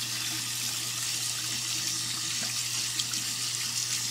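Hot water running from a sink tap and splashing over a finned RC engine cylinder-head heat sink held in the stream, with a steady low hum underneath.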